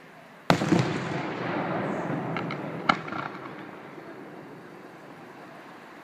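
Fireworks going off. A shell bursts with a loud bang about half a second in, followed by a crackling rumble that slowly fades. A few small pops and a second sharp bang come about three seconds in.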